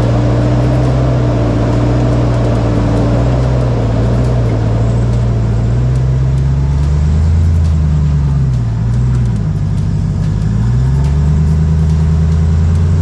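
Full-size pickup truck engine running at low revs while crawling over rocks, its pitch dipping and rising again about two-thirds of the way in as the throttle is eased and reapplied.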